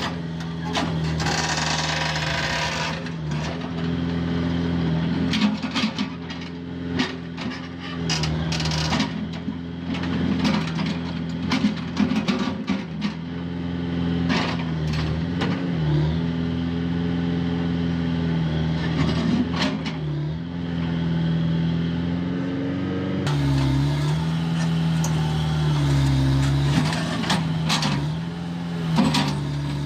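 JCB backhoe loader's diesel engine running steadily, its note dipping briefly every few seconds as it takes load. Sharp knocks and clanks come now and then.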